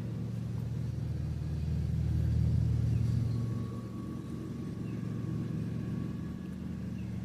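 A car engine running steadily with a low hum, swelling a little about two to three seconds in.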